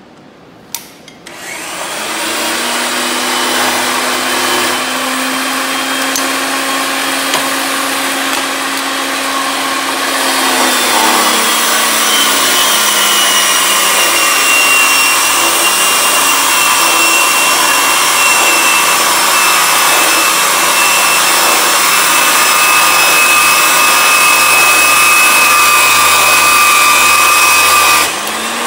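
Electric RIDGID pipe threading machine switched on with a click, spinning up and running steadily while threading a pipe. About ten seconds in its tone dips and it runs on louder with a grinding hiss and a thin high whine as the die cuts, then stops shortly before the end.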